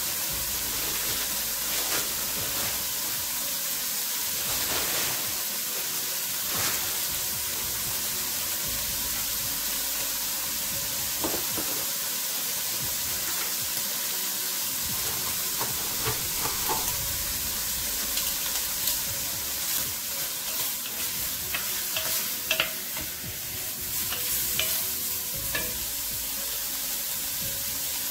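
Smoked pork belly pieces sizzling in the fat they have just begun to render, a steady hiss with scattered pops and clicks that grow more frequent in the second half.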